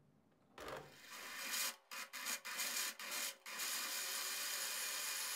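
Otto electric countertop blender running, grinding garlic, pickled garlic, fermented bean curd and sesame in liquid into a smooth sauce. It starts after a brief silence, cuts in and out a few times, then runs steadily.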